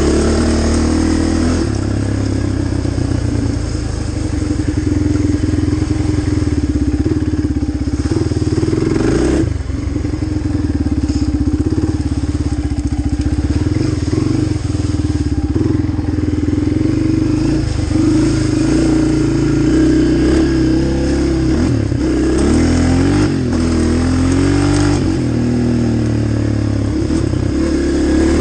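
Sport quad ATV engine running under throttle while riding a dirt trail, its revs swinging up and down several times near the end.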